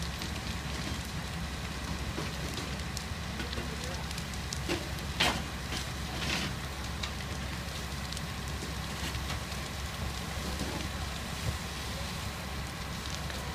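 A fully involved house fire burning with scattered crackles and pops over a steady low rumble, with two louder cracks about five and six seconds in.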